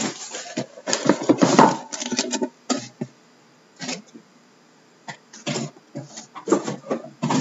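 Cardboard case packing being handled: the cardboard tray and liner scrape and rustle as they are pulled out, loudest about a second in, then shrink-wrapped card boxes are set down and stacked with short knocks and rubs.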